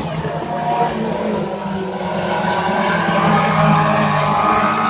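Engines of a pack of race cars running together as they lap a paved oval, a steady drone that swells a little and shifts in pitch as the cars go round.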